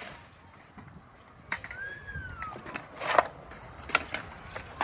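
A skateboard clacks sharply against the ground several times, starting about a second and a half in. Between the first two clacks a short whistled call rises and then falls.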